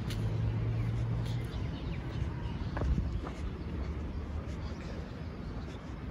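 Outdoor city ambience: a low rumble of distant road traffic, with a few faint taps.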